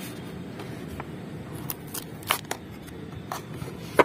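Cardboard retail box being handled and turned over by hand, with a few short papery scrapes and taps. The sharpest comes near the end as fingers work at the box's end flap. A steady low background noise runs underneath.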